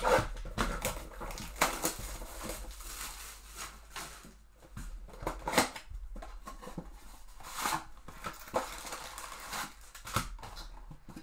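Trading-card hobby box being opened and unpacked by hand: irregular crinkling, tearing and rustling of cardboard and packaging, with sharper crackles near the start, about five and a half seconds in and near eight seconds.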